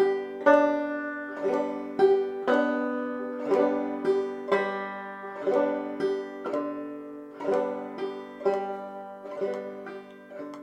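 Banjo played clawhammer style on open, unfretted strings: the basic frailing strum repeated at a slow, steady practice tempo, with a strong stroke about once a second and lighter notes between.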